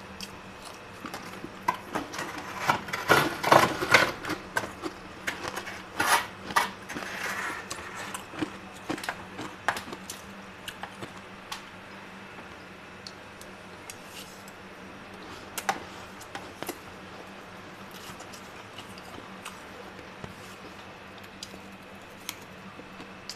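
A metal spoon scraping and scooping soft freezer frost, a crunchy crackle of many small clicks that is busiest in the first third and thins to scattered clicks later. A steady low hum runs underneath.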